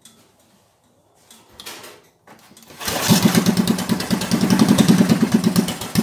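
Briggs & Stratton 8 HP single-cylinder four-stroke engine, fitted with a 32 mm Mikuni carburettor, starting about three seconds in and running fast with rapid, even firing. It is running richer after the needle was raised to cure fuel starvation, and it runs higher than the low idle it was set to. The firing eases slightly near the end.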